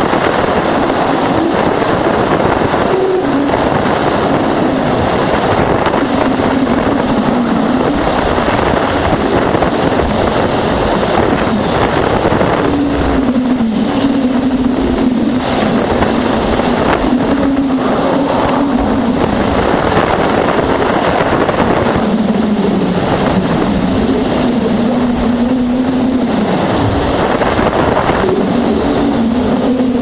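Voyager 1 plasma wave instrument (PWS) wideband recording from inside Io's plasma torus, played back as sound: a dense, rushing hiss that swells and fades in uneven pulses. A wavering low tone dips and rises beneath it, strongest from about twelve seconds in. These are electric-field plasma waves in the torus of plasma left along Io's orbit by its volcanoes, not sound carried through air.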